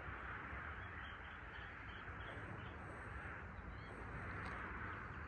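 Outdoor ambience: a steady rushing background noise with faint bird chirps here and there.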